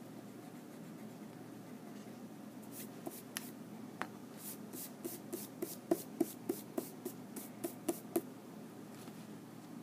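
A hand brushing eraser crumbs off drawing paper: a run of quick swishes, about three a second, starting about three seconds in and stopping a little after eight seconds.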